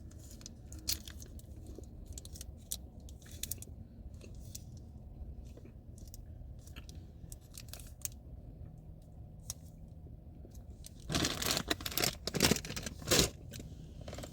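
Plastic wrapper of an Airheads mini bar crinkling and tearing open, with scattered small rustles and then a loud cluster of crackling about eleven to thirteen seconds in, over a steady low hum.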